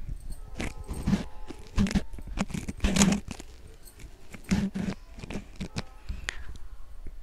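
Bottle gourd kofta balls deep-frying in hot oil in a kadhai: the oil sizzles and crackles, with several louder sharp bursts as more kofta go in.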